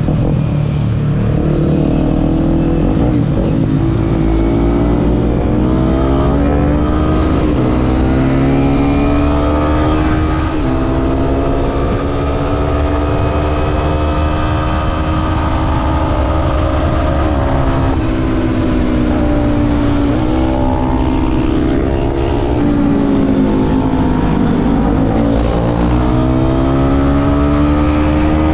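A motorcycle engine under way, its pitch climbing and then dropping sharply several times as the rider shifts up through the gears, over a heavy wind rumble on the microphone.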